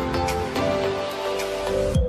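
Background music with sustained and changing pitched notes.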